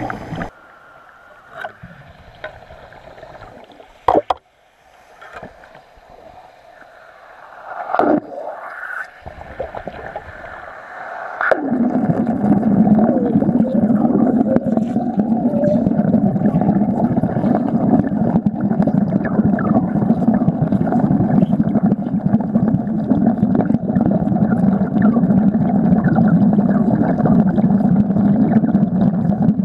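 Underwater wet stick-welding arc, fixing a sacrificial anode to a marina structure. After a few scattered knocks, the arc strikes about twelve seconds in and runs on as a loud, steady, dense noise.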